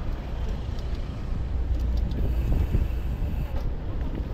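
Steady rumble of wind on the microphone and road noise while riding a bicycle at speed, with traffic around.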